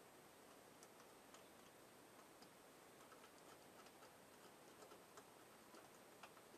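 Near silence with a faint hiss and scattered tiny, irregular clicks, coming more often from about three seconds in: the light crackle of solder and flux under a soldering iron tip heating an LED on a TV backlight strip.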